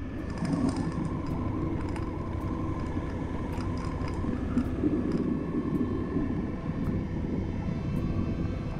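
Steady low engine drone, with faint ticks here and there.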